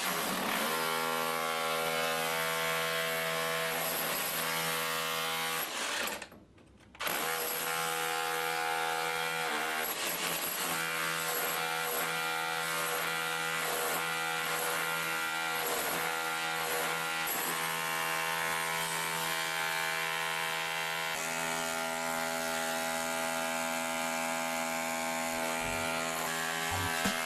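Makita BHR261 36-volt SDS Plus cordless rotary hammer running under power with a steady motor whine. It stops briefly about six seconds in, then runs on steadily.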